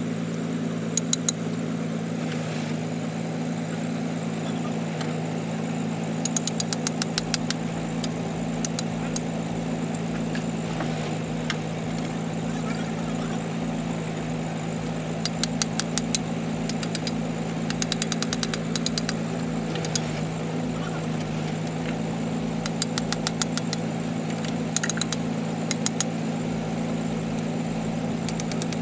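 Borewell drilling rig's engine running at a steady pitch, with short runs of rapid sharp clicks several times over.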